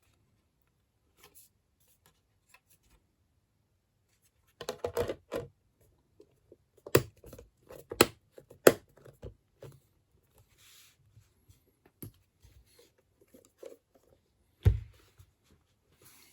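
Hands handling small hardware parts: irregular clicks, scrapes and rustles, with a few sharp knocks about seven, eight and nine seconds in and a loud one near the end.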